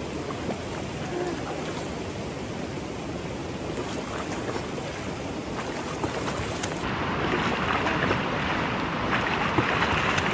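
Steady rushing of a shallow river running over rocks, getting louder about two-thirds of the way through. Near the end come a few small splashes from a hooked trout being drawn in at the surface.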